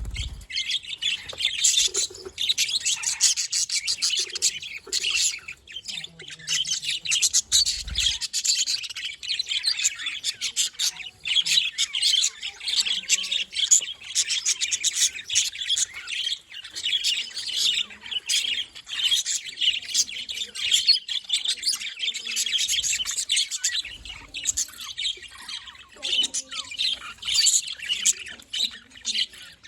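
Several budgerigars chattering and warbling together, a continuous mix of quick chirps and squawks.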